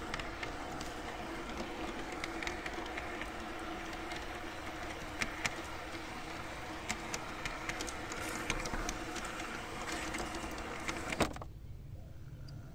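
RhB garden-railway model train rolling on brass track, heard from a car riding on it: a steady running hum with irregular clicks as the wheels cross rail joints and points. About eleven seconds in, the sound drops suddenly and turns duller as the train enters a concrete tunnel.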